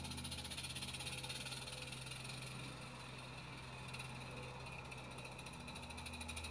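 Small 7/8ths-scale live-steam garden-railway locomotive running toward the microphone, its exhaust a rapid, even chuffing that grows louder near the end.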